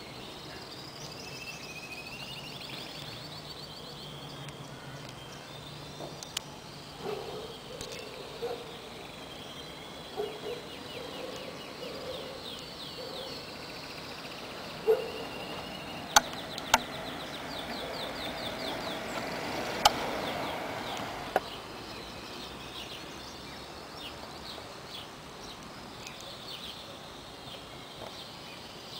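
Outdoor ambience with birds chirping and trilling in quick high runs of notes, and some lower calls in the first half. Over the middle stretch there are about half a dozen sharp clicks, the loudest sounds.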